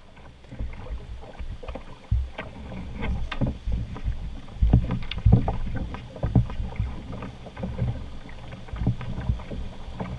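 A canoe being poled downstream through fast river current: water rushing and slapping around the hull, with irregular knocks and splashes throughout.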